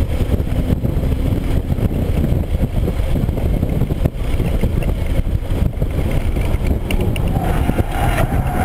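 Cabin noise inside a 2013 Hyundai Genesis Coupe 3.8 R-Spec at track speed: steady wind, road and engine rumble from its 3.8-litre V6 as the car brakes hard from about 89 to 44 mph. A higher steady tone comes in near the end.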